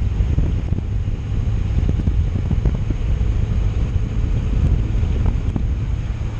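Wind buffeting the microphone: a steady, loud low rumble with crackles.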